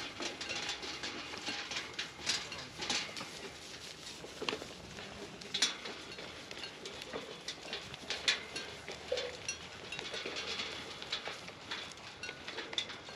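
Goats eating feed pellets from metal fence-line feeders: many irregular crunches and clicks as their muzzles work through the pellets and knock against the trough.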